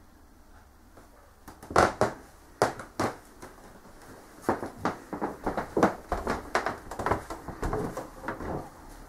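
A run of irregular sharp knocks and clicks, starting about a second and a half in and going on, some loud and some softer, until near the end.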